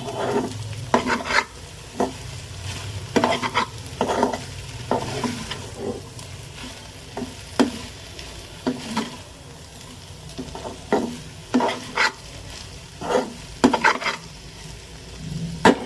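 Okra stir-fry sizzling in a pan while a spoon stirs it, scraping and knocking against the pan in irregular strokes about once a second over a steady hiss.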